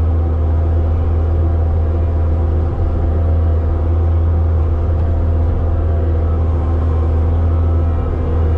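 Loader engine running at a steady speed, a deep, even hum.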